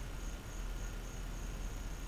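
Steady outdoor background hiss with a low rumble, and a faint high-pitched pulse repeating about two to three times a second.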